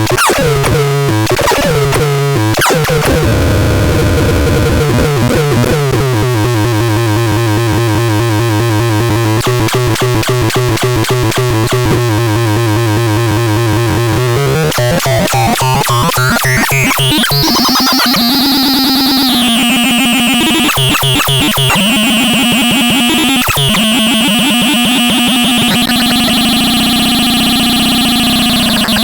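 Synthesizer playing a harsh, buzzy held tone that pulses rapidly. About halfway through it sweeps steadily upward into high held tones that step between pitches.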